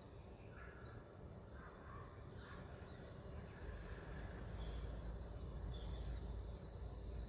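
Faint bird calls in the surroundings, scattered and short, over a low rumble that grows louder about halfway through.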